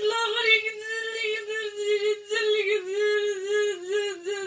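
A woman's voice wailing in one long, unbroken, high wavering tone. It is a ruqyah patient's wail, which the exorcist treats as the voice of a possessing jinn.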